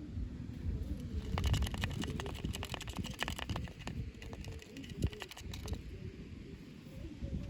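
Hands handling plastic toy packaging: a dense run of crackling plastic clicks for a few seconds, over low rustling handling noise.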